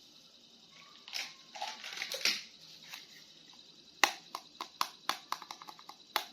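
Plastic packaging rustling and crinkling for about a second and a half, then a run of sharp plastic clicks and taps, several a second, as a toy action figure is handled.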